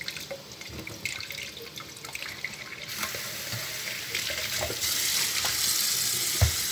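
Water running from a kitchen tap into a plastic measuring jug, the flow growing stronger about halfway through. A single dull knock near the end.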